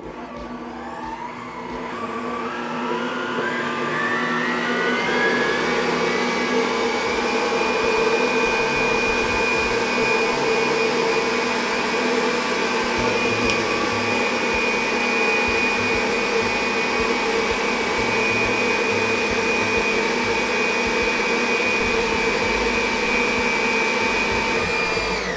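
Waring electric stand mixers whipping egg yolks for mayonnaise, the motor whine rising in pitch over the first several seconds as it comes up to speed, then running steadily.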